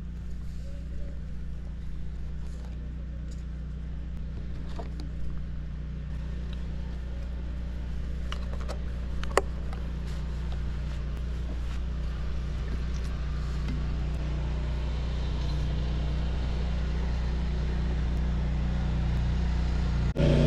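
A steady low mechanical hum, engine-like, with a few light clicks and taps of a spoon on plastic tubs and paper plates, one sharper click about nine seconds in.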